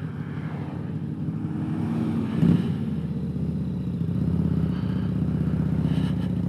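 Harley-Davidson motorcycle engine running steadily at low speed, heard from the rider's seat. There is one brief loud knock about two and a half seconds in, and the engine note grows a little louder after it.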